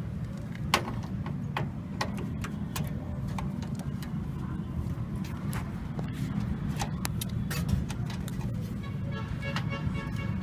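Screws being taken out of a desktop computer's system unit with a screwdriver: scattered, irregular metal clicks and taps over a steady low hum.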